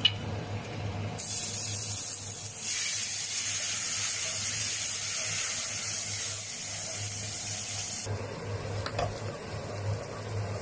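Chopped shallots, garlic and chillies sizzling in hot oil in a non-stick wok as they are stirred with a wooden spatula: a loud sizzle starts about a second in and cuts off sharply about eight seconds in. A sharp clink at the very start.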